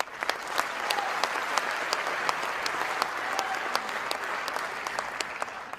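Audience applauding: a dense patter of clapping that swells in right away and tapers off near the end.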